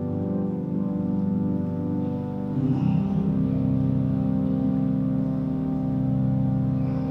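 Slow music of long held chords with an organ-like sound. About two and a half seconds in, the chord changes to a louder, lower one.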